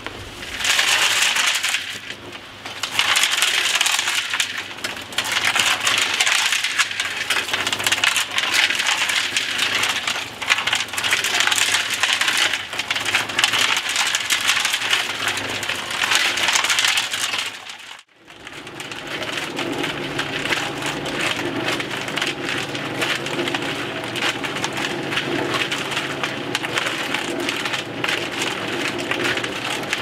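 Concrete mixer running, its turning drum rattling and crunching with gravel and concrete mix inside. About eighteen seconds in it cuts off suddenly and comes back as a steadier, lower churning with a hum under the rattle.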